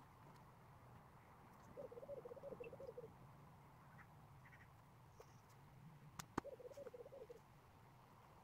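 A duck quacking in two quick runs of rapid quacks, about four seconds apart, with a sharp click just before the second run.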